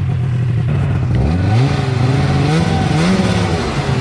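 An old snowmobile engine running under load in deep snow. It sags about a second in, then revs up twice and falls back, as if the throttle is being worked to keep it from stalling.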